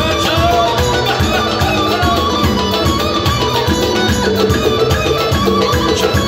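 Music with a steady beat and a plucked string instrument, part of a song medley.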